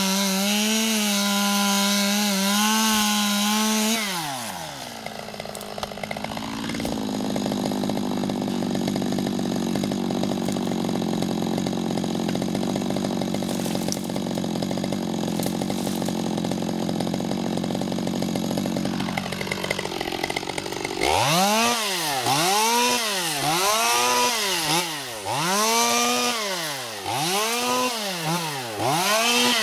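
Two-stroke chainsaw held at full throttle cutting a hedge stem, then dropping to idle for a long stretch. Near the end it is revved up and down about once a second.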